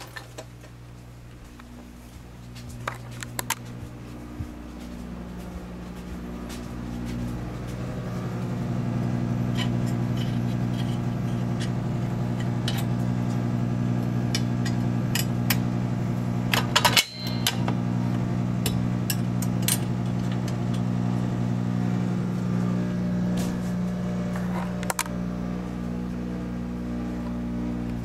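Fire alarm horn sounding a steady, continuous electric buzz, which grows louder over the first several seconds and then holds. Scattered clicks and knocks sound over it, with a cluster of sharp clicks about two-thirds of the way in.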